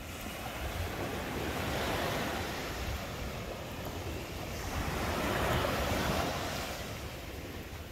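Ocean surf washing onto a sandy beach, swelling twice, with wind rumbling on the microphone.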